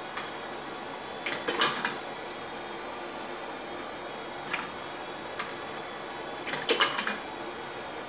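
Homemade automated rifle-brass annealer running: twice, about five seconds apart, a short metallic clatter as an annealed brass case is dropped from the flame and the next one fed, with a few lighter clicks between, over a steady hiss.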